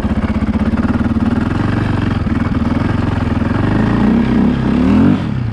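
Dirt bike engines idling as they warm up on a cold morning. About four seconds in, the throttle is blipped a few times and the pitch rises and falls before settling back to idle.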